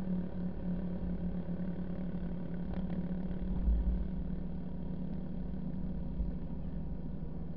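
A car driving over beach sand: its engine and tyres make a steady low drone. There is a low bump about three and a half seconds in.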